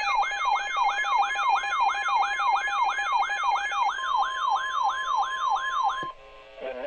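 Electronic siren falling in pitch about three times a second, layered over steady alert tones, cutting off abruptly about six seconds in. A voice heard over the radio starts near the end.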